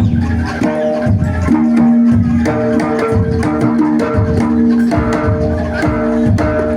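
Javanese jaranan (kuda lumping) music played live, with quick drum and percussion strokes over held pitched notes that change every second or so.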